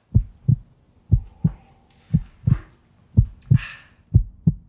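Heartbeat sound effect: pairs of deep thumps, lub-dub, repeating about once a second. A short hissing noise comes in about three and a half seconds in.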